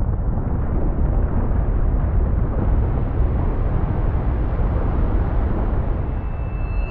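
Loud, steady low rumble of an earthquake's shaking.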